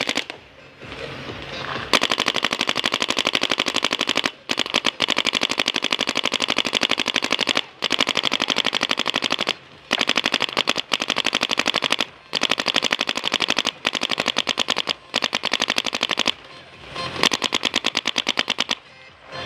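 Paintball marker firing long rapid-fire strings of shots, many a second, broken by brief pauses, with one last shorter string near the end.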